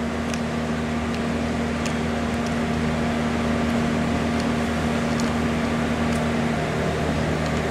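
A steady mechanical hum of running machinery, with a low steady tone that drops out near the end, and a few faint ticks.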